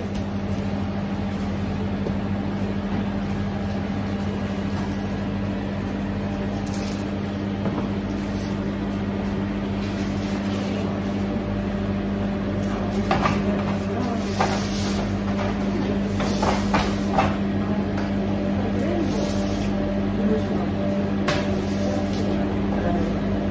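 Steady low hum of bakery kitchen machinery. From about halfway on, scattered knocks and clatter come from trays and plastic dough boxes being handled.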